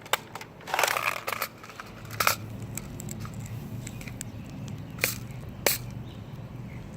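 Handling noises from a plastic foam-ball blaster being reloaded: a few sharp plastic clicks, one about a second in with a short scraping rustle, and single clicks later on.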